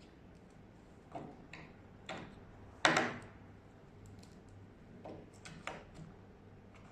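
Several sharp clicks and knocks at irregular spacing as batteries and the battery compartment of a smart door lock are handled, the loudest about three seconds in.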